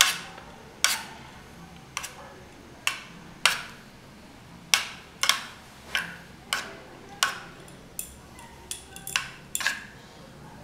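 Steel spoon clinking against a square dish while spooning beaten egg over a coated chicken finger: about fifteen sharp clinks at irregular gaps of half a second to a second.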